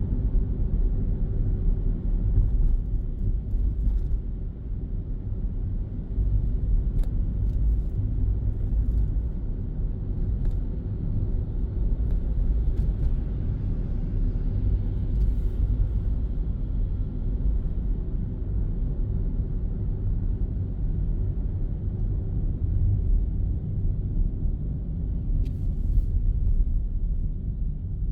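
A car's steady low road and engine rumble, heard from inside the cabin while driving, with a few faint ticks.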